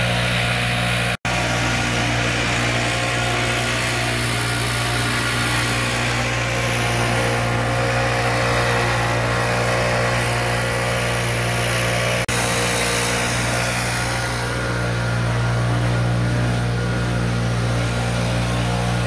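Stihl BR 700 backpack leaf blower's two-stroke engine running steadily while blowing leaves. The sound cuts out for an instant about a second in, and shifts slightly around twelve seconds in.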